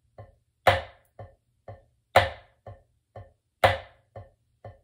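A single drumstick playing single-hand triplets on a drum head. Each group is one loud accented stroke followed by two soft low taps, evenly spaced at about two strokes a second, so the accents fall every second and a half.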